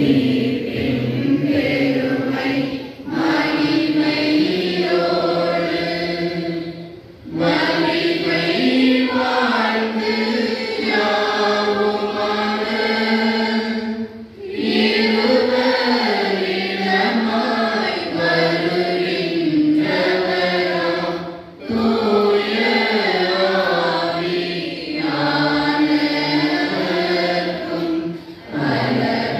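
A group of voices singing a church hymn together in long, held phrases, with short breaks for breath between phrases every few seconds.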